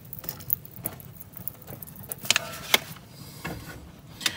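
Scattered light clicks and taps of hand handling around a pool heater's gas valve while soapy water is put on it in a leak check, with a faint hiss near the end.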